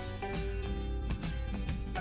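Background music: plucked and strummed guitar with a steady beat.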